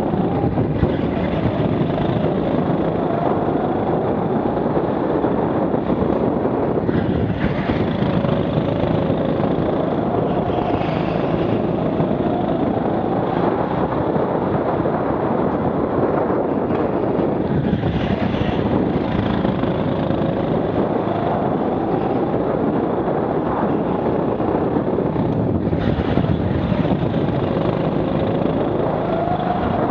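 Rental go-kart engine heard from the driver's seat, its pitch rising and falling every few seconds as the kart accelerates and brakes through the corners, under a steady rush of noise.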